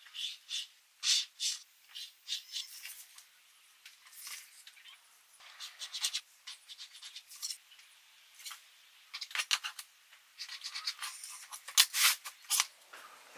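Pencil scratching along a steel ruler on birch plywood as layout lines are drawn: short, irregular scratchy strokes, with tools being set down on the board between them. A sharp knock near the end is the loudest sound.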